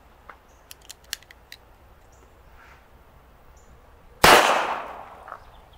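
A single shot from an M1895 Nagant revolver firing a surplus 7.62x38mmR cartridge, about four seconds in: a sharp crack with an echo that dies away over about a second. A few faint clicks come before it.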